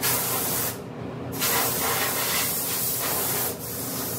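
Compressed-air blow gun hissing in blasts, blowing dust off the primed cab while it is tack-ragged before sealer: a short blast, a brief pause about a second in, then a longer blast of about two seconds that eases off near the end.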